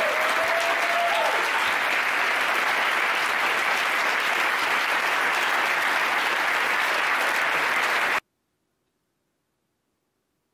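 Audience applauding, with a drawn-out whoop over it in the first second; the applause cuts off abruptly about eight seconds in.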